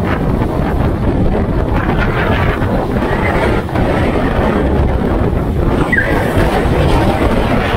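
Storm wind blowing hard across the microphone, mixed with the rush of waves breaking and spraying against a rocky jetty.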